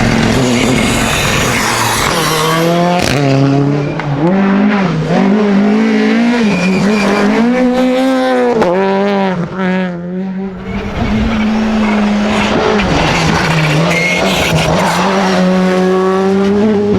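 Rally car engine revving hard, its pitch climbing and dropping again and again through gear changes and lifts, then holding a steady pull for the last few seconds.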